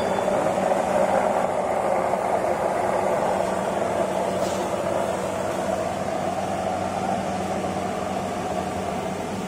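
Tiger nut grinding machine (a vertical stainless-steel colloid mill driven by an electric motor) running steadily with a constant hum, grinding tiger nut slurry that recirculates from its outlet pipe back into the hopper.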